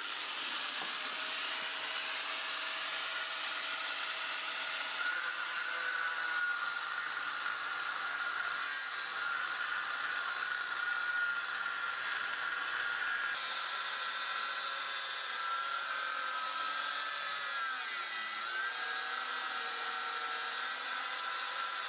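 Angle grinder running continuously, cutting into the bicycle's seized crank and bottom bracket because a crank puller could not free the crank. Its pitch sags under load about 17 seconds in, then recovers.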